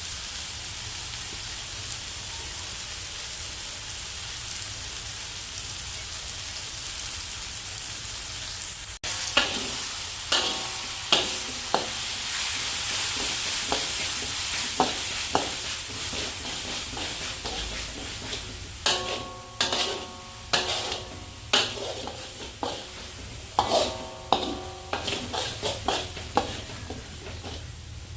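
Food sizzling steadily in a hot pan of oil. From about nine seconds in, a metal spatula repeatedly knocks and scrapes against the pan as the food is stirred, some strokes leaving a brief metallic ring.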